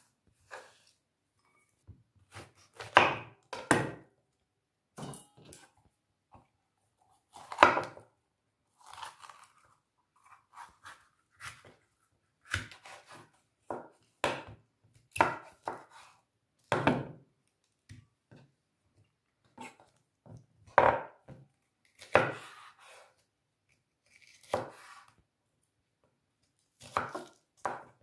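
Chef's knife cutting a red bell pepper on a wooden cutting board: irregular knocks of the blade against the board, some much louder than others, with short quiet gaps between cuts.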